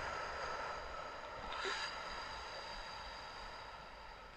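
A woman's long, slow exhalation through pursed lips, a soft breathy hiss that gradually fades: the drawn-out out-breath of a labour breathing technique for riding through a contraction.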